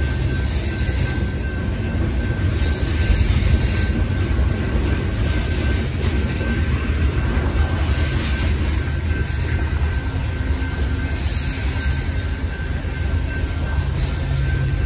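Covered hopper cars of a Union Pacific manifest freight train rolling past: a steady low rumble of steel wheels on rail. Higher-pitched wheel noise rises and fades several times.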